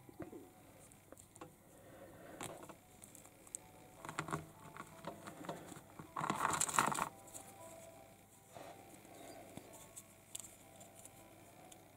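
Small plastic toy-figure parts and their packaging being handled: scattered light clicks and rustles, with a louder rustle lasting under a second just past the middle.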